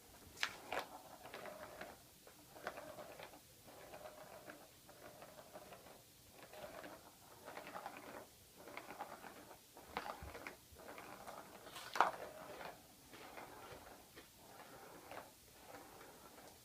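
Balls rolling and rattling around a cat's ball-track toy in repeated bursts as the cat bats them, with sharp clacks, the loudest about twelve seconds in.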